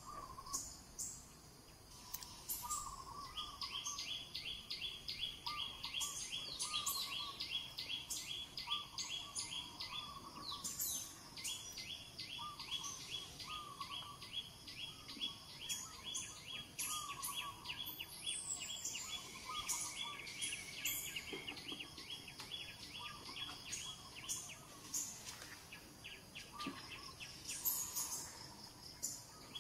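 Birds chirping and calling, with a short call repeated every second or two. A fast, evenly pulsing high trill starts a few seconds in, breaks off briefly around the ten-second mark, resumes, and stops a few seconds before the end.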